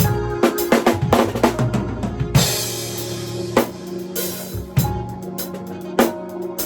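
Drum kit played in a smooth, jazzy groove along to a backing track of sustained chords and bass. A quick run of drum strokes leads into a cymbal crash about two and a half seconds in, with another crash a couple of seconds later.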